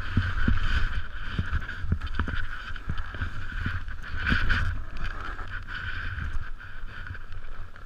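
Snowboard sliding and scraping over firm groomed snow, a continuous hiss with small knocks from the board over the ridges, and wind buffeting the action camera's microphone as a low rumble.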